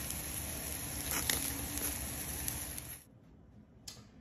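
Picanha steaks sizzling on a charcoal grill grate over glowing coals: a steady hiss with occasional faint crackles. It cuts off about three seconds in, leaving quiet room tone and a single click.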